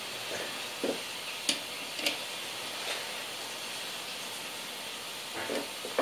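Steady background hiss with a few light taps and clinks from a metal keyboard plate being handled, then a small cluster of taps near the end as it is set down on a wooden desk.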